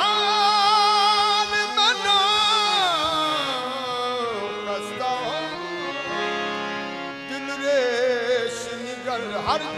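Qawwali: a man's voice singing long held notes with a wavering vibrato over steady harmonium drones. The voice glides down after about two seconds and rises into a new phrase near the end.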